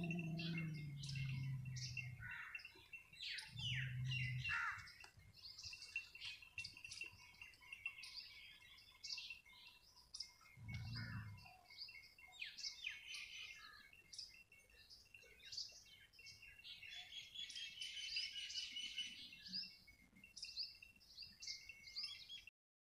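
Small birds chirping, with many short, high calls overlapping throughout and a faint steady high tone beneath them. A low hum comes and goes in the first few seconds and again about eleven seconds in. The sound cuts off just before the end.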